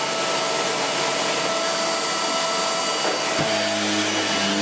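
Vax Mach Air upright bagless vacuum cleaner running steadily just after being switched on, working again now that its mains cable has been replaced. About three and a half seconds in there is a single knock, and a lower hum joins the motor whine.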